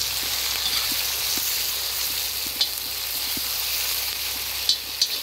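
Beef, potato slices and onions sizzling steadily in hot sunflower oil in a cast-iron kazan, stirred with a metal skimmer, with a few short clicks.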